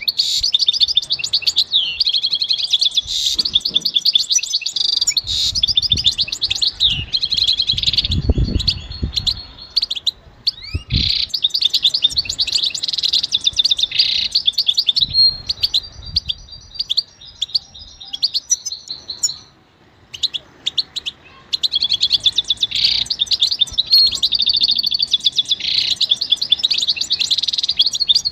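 European goldfinch singing: a long, rapid, twittering song of trills and chirps, with a brief pause about twenty seconds in.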